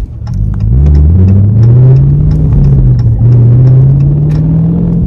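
Car engine accelerating, heard from inside the cabin: its pitch climbs, dips briefly about three seconds in, then climbs again.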